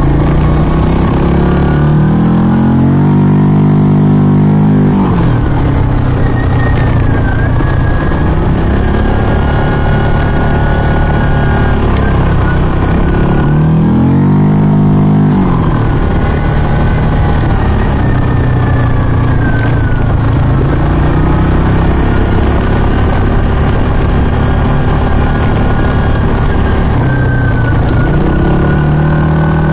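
ATV engine running under way, revving up and easing back off twice: once about two seconds in and again about thirteen seconds in.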